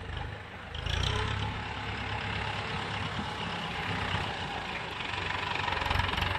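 Tractor engine running steadily with a low, even throb, getting louder about a second in.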